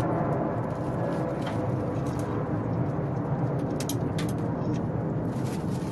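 A few scattered light clicks and taps of a socket wrench working on the turbo manifold's bolts, over a steady low background hum.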